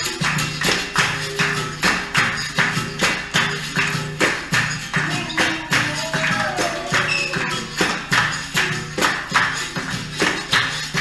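Capoeira roda music: a steady, evenly accented percussion rhythm of repeated hand-struck hits over a low sustained note.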